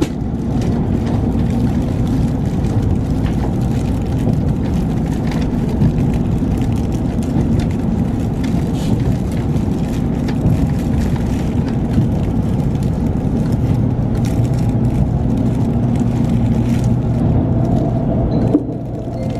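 Steady low rumble of a Shinkansen bullet train running on its track, heard from inside the passenger car.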